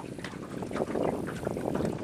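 Small waves lapping and slapping against a boat's hull, with wind buffeting the microphone; the lapping grows louder about two-thirds of a second in.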